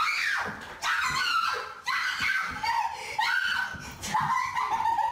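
High-pitched laughing and squealing from a young voice, in several outbursts about a second apart.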